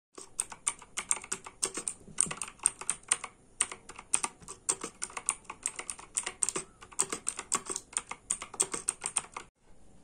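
Fast typing on a Quantum Rapid Strike RGB mechanical keyboard: a quick, irregular run of sharp key clicks that stops abruptly about half a second before the end.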